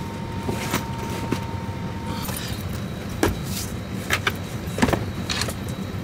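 Bags being pushed into an airliner's overhead bin: a few knocks and scrapes of luggage against the bin, the loudest about three and five seconds in, over a steady low cabin hum.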